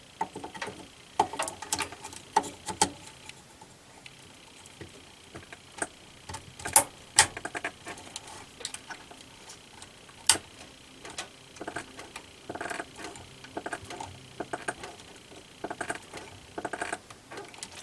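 Scattered plastic clicks and taps of DDR3 memory sticks being handled and pressed into a PC motherboard's slots, with a few sharper, louder clicks about a third and halfway through.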